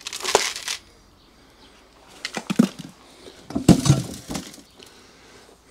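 Potting soil mixed with clay granules being tipped from a small pot into plastic plant pots: three short, gritty pours, one at the start and two more around the middle.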